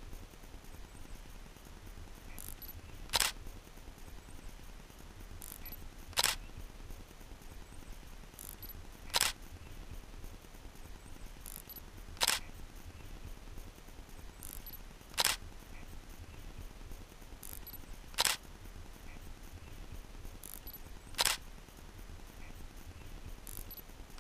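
Camera shutter clicks repeated at an even pace, about one every three seconds, seven times. Each sharp click comes with a fainter click a little under a second before it, over a faint low hum.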